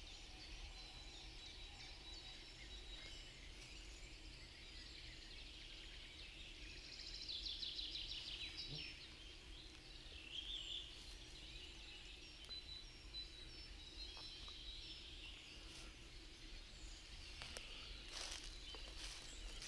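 Faint spring woodland chorus of songbirds singing and trilling, with common cranes calling in the distance. Footsteps on the forest floor start near the end.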